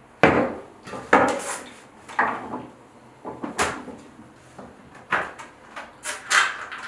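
Road bike tyre bead being worked back onto the rim by hand: rubber scraping and snapping over the rim edge in about six separate strokes, each starting sharply and fading.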